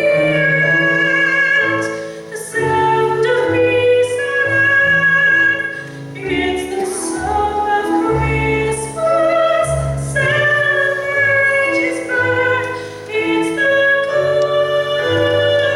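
A woman singing a solo in a full classical style, holding long notes in phrases with short breaks for breath, over a steady instrumental accompaniment.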